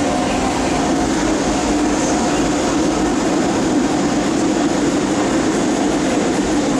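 Disneyland Resort Line M-Train running past the platform behind the screen doors: a steady rumble of wheels on rail and running gear, loud and even.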